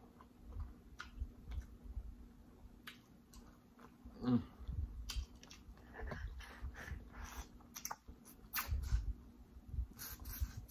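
A person eating seafood: wet chewing and sucking with sharp mouth clicks and lip smacks, a short hummed "mm" about four seconds in, and fingers sucked clean near the end.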